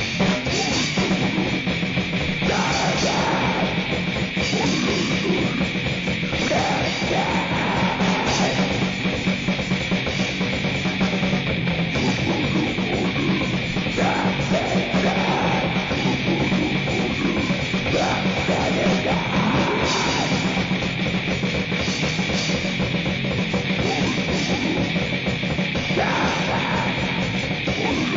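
Grind/noise music: dense distorted guitar and bass noise with drums, held droning tones and harsh shouted vocals, without a break.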